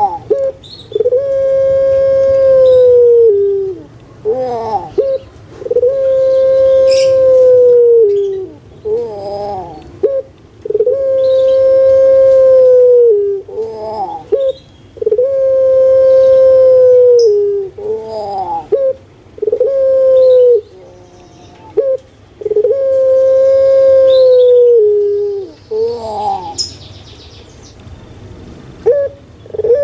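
Barbary dove (puter pelung, Streptopelia risoria) cooing: a long, steady drawn-out coo of about two seconds that drops in pitch at its end, repeated about every four seconds, with shorter sliding notes in between.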